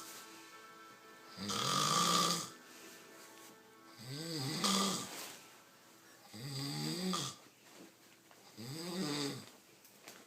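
A man snoring, four snores about two to two and a half seconds apart, each with a rough pitch that rises and falls.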